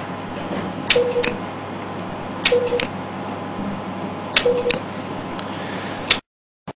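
INTRAcel microneedle radio-frequency handpiece firing three shots, each a sharp click, a short low beep and a second click, repeated every couple of seconds. The sound cuts off abruptly near the end.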